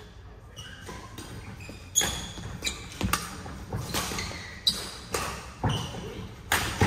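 Badminton rally: sharp cracks of rackets striking the shuttlecock in quick succession from about two seconds in, with short shoe squeaks on the court mat, echoing in a large sports hall.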